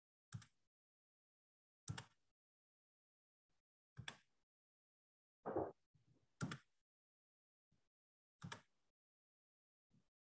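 Near silence broken by faint short clicks and taps about every one to two seconds. One about halfway through is fuller and duller than the rest.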